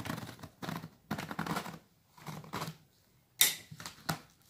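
Scissors cutting along the packing tape of a cardboard box in several short cuts, then a loud, sharp tearing crack about three and a half seconds in as the box flap is pulled up, and a click soon after.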